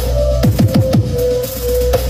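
Electronic dance music played loud through a large carnival sound-system speaker stack: heavy deep bass and a held synth note, with bass kicks that drop in pitch. About half a second in comes a fast run of about four kicks.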